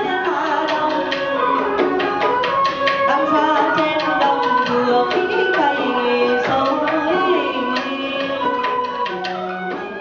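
Traditional Vietnamese music accompanying a water puppet show: quick, busy hand-drum and percussion strokes under a pitched melody that slides and bends between notes, with some singing.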